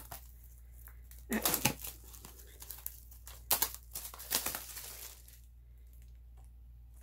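Plastic shrink wrap being torn and crinkled off a boxed music album, in a few short rustling bursts, the loudest about a second and a half, three and a half, and four and a half seconds in.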